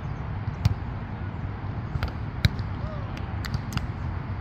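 Volleyball being struck during play: a few sharp smacks, the loudest about two and a half seconds in, over a steady low rumble and faint distant voices.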